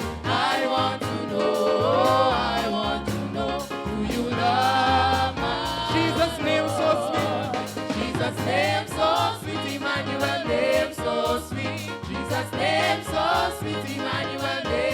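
Gospel music with a choir singing over instrumental backing, the words not picked out.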